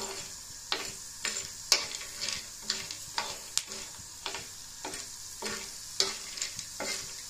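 Metal spoon stirring and scraping black myrobalans (halela siyah) frying in desi ghee in a black pan: sharp scrapes and clicks about twice a second over a steady faint sizzle. The fruits are at the stage of puffing up and turning from black to brown.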